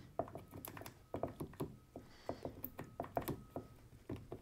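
Faint, irregular light clicks and taps as a glue spreader and glue brush work glue onto the fingers of a pine box joint.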